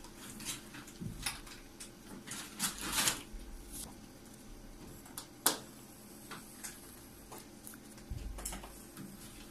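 Pencil scratching across sketchbook paper in short irregular strokes, with a sharp tap about halfway through.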